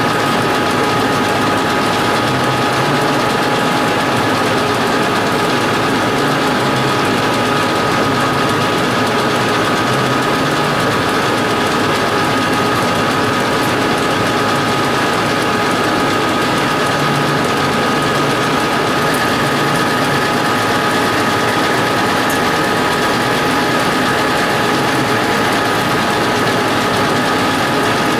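Metal lathe running steadily, its drive giving a constant whine, as the tool turns a 2.5-inch aluminum bar.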